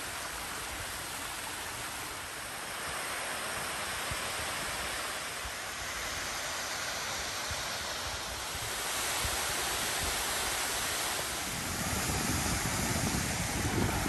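Steady rushing noise of a waterfall, growing gradually louder. In the last few seconds low buffeting of wind on the microphone comes in.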